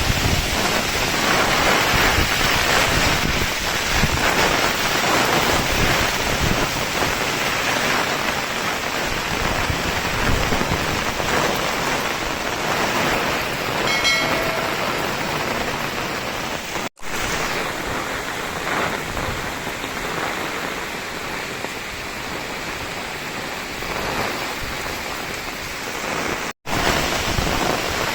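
Heavy rain pouring steadily in a storm. It cuts out abruptly for an instant twice in the second half.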